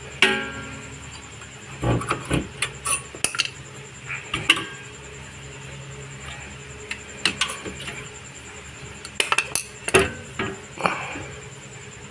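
Scattered sharp metal clinks and clanks from the rear disc brake caliper and tools being handled during a brake pad change, in bunches, the first near the start ringing on briefly.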